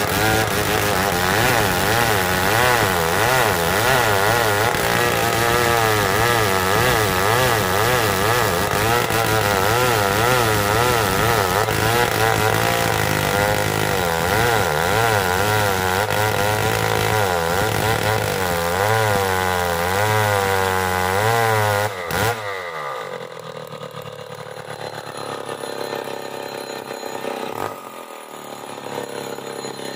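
Old chainsaw ripping lengthwise along the grain of a hard marsawa batu log, the engine running at full throttle under load with a wavering pitch. About 22 seconds in the throttle is released and the saw drops back to a much quieter idle.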